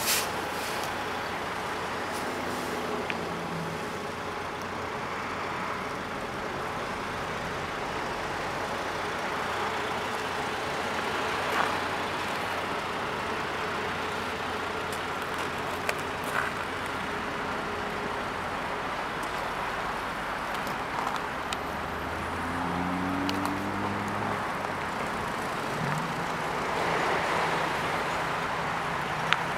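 Steady outdoor traffic noise, with a vehicle growing louder for a few seconds near the end, and a few sharp clicks.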